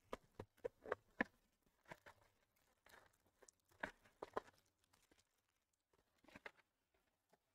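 Faint crinkling and tearing of wrapping as a new hobby box of baseball cards is opened: a run of small, irregular crackles and rustles that thins out over the last couple of seconds.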